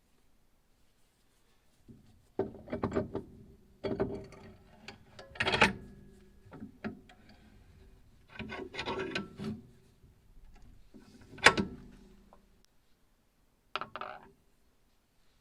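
Handling noises in several separate clusters: clicks, knocks and scrapes with short pauses between them, the loudest a single sharp click near the end. A faint steady hum runs under them and stops shortly before the last short clatter.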